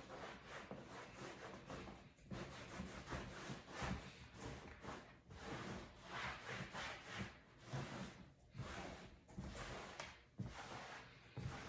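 Cloth rubbing over leather couch upholstery in repeated strokes, buffing it to a shine.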